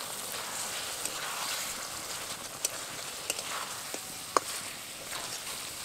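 Chicken pieces in masala sizzling in a kadai as a thin stream of water is poured in, with a few faint clicks.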